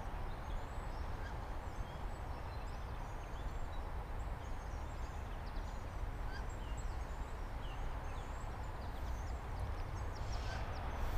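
Wild birds chirping and calling in the streamside woods: many short, high chirps scattered throughout, over a low steady rumble. There is a brief rustle near the end.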